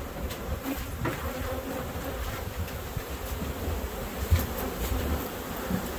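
Honey bees buzzing in a steady dense hum, from bee packages full of caged bees and loose bees flying around them. A low rumble runs underneath, with one brief louder bump a little past four seconds in.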